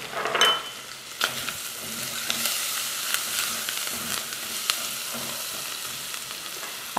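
Bacon, sausage and chopped onion sizzling steadily in a stainless steel pot while being stirred with a spatula, with scattered scraping clicks.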